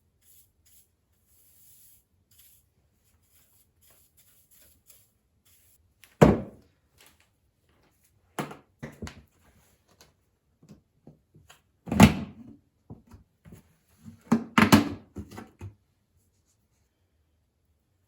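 A handful of sharp knocks and thuds of hard objects being handled and set down, in four separate clusters a few seconds apart, the loudest about two-thirds of the way through.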